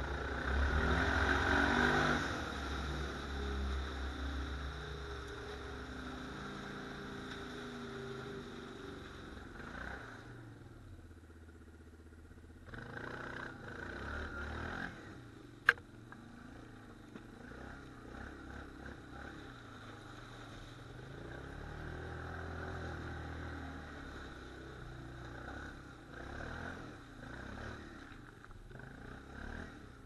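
ATV engine running under way, loudest in the first couple of seconds, then steadier at lower revs, fading briefly about ten seconds in before picking up again. A single sharp click about fifteen seconds in.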